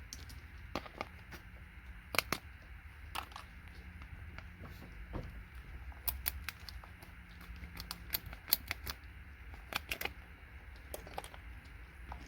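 Hand tools clicking and snapping as parts are worked off scrap circuit boards: irregular sharp clicks, a few louder snaps among them, over a steady low hum.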